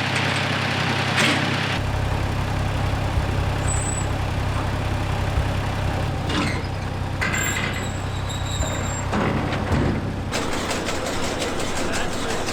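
Tractor engine running steadily, with a few short knocks or rattles along the way; the sound shifts in character about two seconds in and again near ten seconds.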